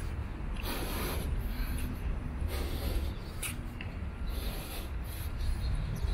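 Wind rumbling on a handheld camera's microphone, with a few short bursts of rustling and rubbing from handling the camera.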